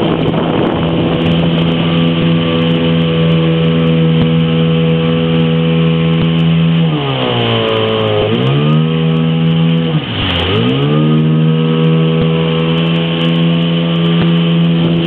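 Motorboat engine running steadily at a constant speed. Its pitch drops and climbs back twice as it slows and picks up again: once for over a second about seven seconds in, and briefly about ten seconds in.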